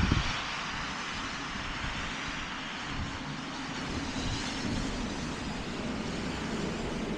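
Steady outdoor rushing noise with uneven low rumbling on the microphone, and a brief low thump right at the start.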